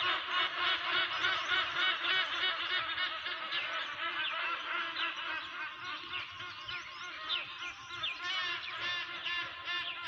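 Early-morning chorus of many birds calling at once: a dense, steady mix of overlapping chirps and chatter. Quick sweeping whistled notes stand out in the second half.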